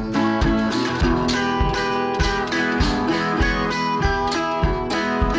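Background music: a guitar tune over a steady beat of about two thumps a second.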